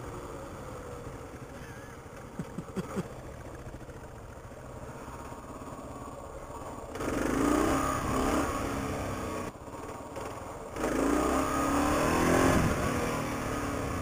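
Kawasaki KLR650's single-cylinder engine running on the move. It grows louder twice, about seven and about eleven seconds in, as it pulls under throttle, with a short drop in between. A few sharp clicks come about two and a half seconds in.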